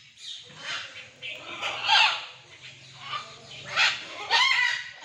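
Macaws squawking: several loud, rasping calls, the loudest about two seconds in and two more close together near the end.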